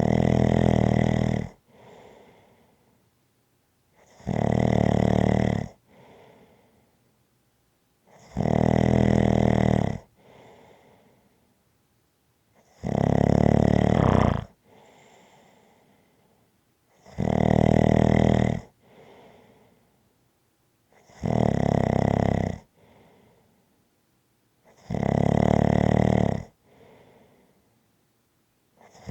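Steady, regular snoring: a loud snore about every four seconds, seven in all, each lasting about a second and a half and followed by a fainter breath.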